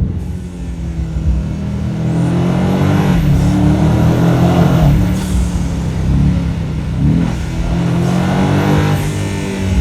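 BMW M5's twin-turbo 4.4-litre V8 under hard acceleration, with the M Sound enhancement switched on: revs climb for a few seconds, drop sharply about five seconds in, then climb again near the end.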